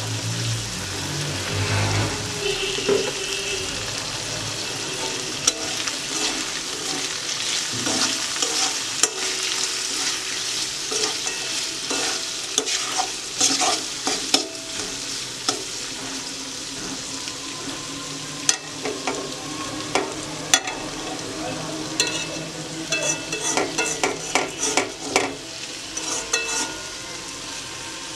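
Quail frying in hot oil in a pan, sizzling steadily while a spatula stirs and scrapes against the pan. The scraping and clicking come thick and fast near the end.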